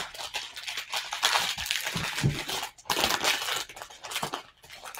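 Plastic shrink wrap crinkling and tearing as it is picked at and pulled off a book, in an irregular crackle.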